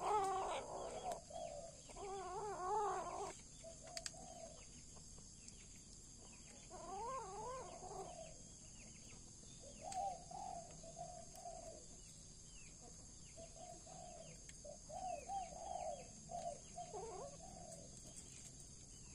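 A kitten yowling in long, wavering calls about two seconds in and again about seven seconds in, with shorter calls in between, while it eats a rat: the possessive yowl of a cat guarding its prey. Faint bird chirps sound in the background.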